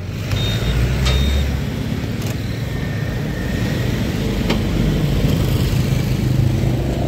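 Motor scooter under way at low speed: its small engine running steadily, with road and wind noise on the rider-held microphone.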